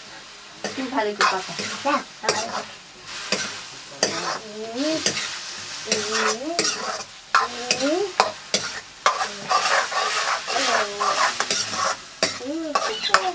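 Metal ladle stirring and scraping mushrooms in a steel wok, with repeated clinks and knocks against the pan over the steady sizzle of the mushrooms frying in oil.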